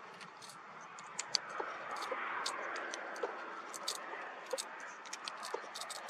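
Strong wind gusting, a rushing hiss that swells about two seconds in and then eases, with scattered sharp clicks throughout.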